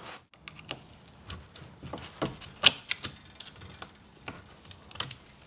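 Irregular sharp metal clicks and taps of a hand tool working at the circlip inside a VW Vanagon CV joint clamped in a vise, prying the clip out of its groove.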